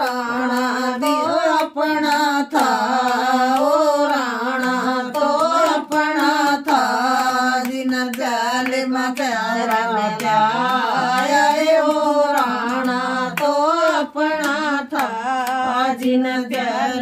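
A group of women singing a Krishna bhajan together without instruments, keeping time with steady hand-clapping.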